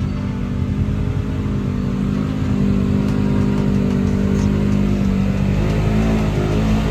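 ATV engine running at a steady speed, its pitch holding nearly level.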